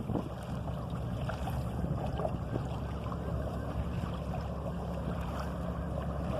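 Water lapping and splashing against the hull of a sailing canoe, over a steady low wind rumble.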